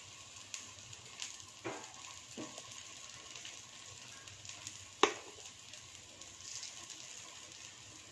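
Idli batter sizzling faintly in hot coconut oil in the wells of a paniyaram pan as spoonfuls are dropped in. A few light clicks, and one sharper click about five seconds in.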